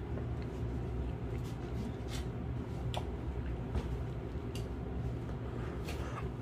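A few faint clicks and rustles as a fabric pet carrier bag is handled, over a steady low hum.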